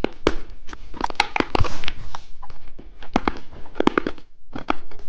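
Candy being eaten close to the microphone: an irregular run of sharp crackles and crunching clicks.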